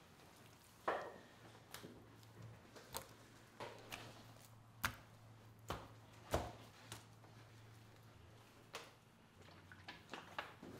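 Knife chopping on a cutting board: sharp, irregular knocks about once a second, over a faint steady low hum.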